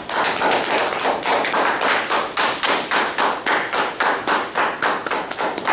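Audience applauding: a dense run of many hands clapping.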